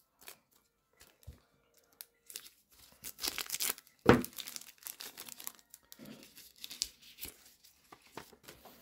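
Clear plastic wrapper of a trading-card booster pack crinkling and tearing as it is worked open by gloved hands, with one loud sharp snap a little after four seconds in, then lighter rustling as the cards come out.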